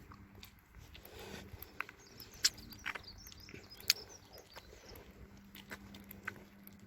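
Faint outdoor ambience: small birds chirping briefly around the middle, among scattered sharp clicks, two of them louder than the rest, with a faint steady low hum underneath.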